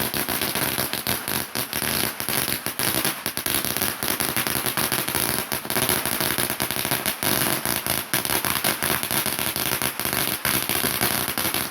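A lit firework going off, starting suddenly with a loud, continuous crackle and hiss full of rapid pops that runs for about twelve seconds.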